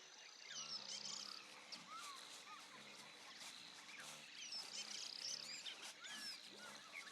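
Faint natural ambience of scattered bird chirps, with a low pulsing animal call repeating about twice a second underneath.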